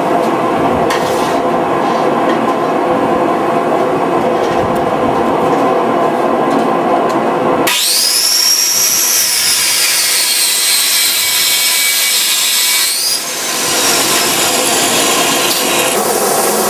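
A steady machine drone, then about eight seconds in an abrasive chop saw bites into steel bar stock with a sudden shrill whine that sags and rises again while it cuts. Near the end comes the hiss of a belt grinder grinding steel.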